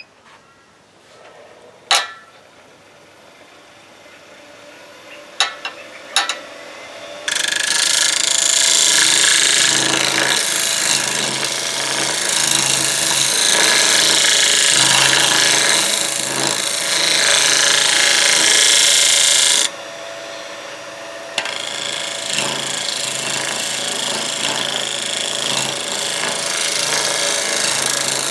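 A turning tool cutting spinning Golden Cypress on a wood lathe: a loud, even hiss of the wood being shaved, starting about seven seconds in, breaking off briefly near two-thirds of the way through and then resuming, over the lathe's low hum. Before the cutting starts there are a few sharp knocks.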